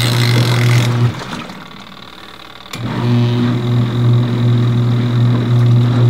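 A compact single-tub portable washing machine's 200 W motor runs with a steady hum, agitating the rinse water. The hum stops a little after one second in and starts again about two seconds later.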